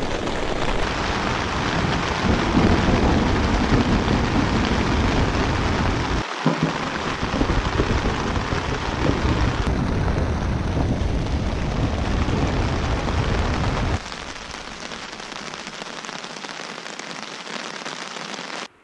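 Heavy rain drumming on the nylon tent fly, heard from inside the tent, with a strong low rumble; about 14 seconds in it drops to a softer, lighter patter.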